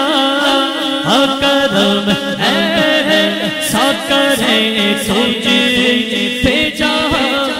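A man singing an Urdu naat unaccompanied into a microphone. His voice bends and glides through long, drawn-out melodic phrases.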